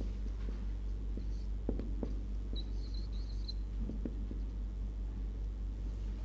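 A steady low electrical hum, with light taps and brief high squeaks of a marker writing on a whiteboard, squeaking most around the middle.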